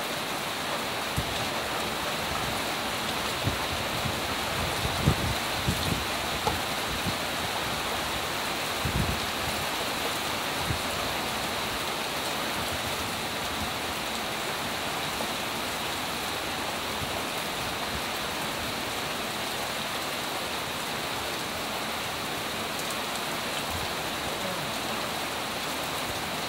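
Light rain (drizzle) falling steadily, a constant even hiss. A few brief low thumps come in the first ten seconds or so, the loudest about five seconds in.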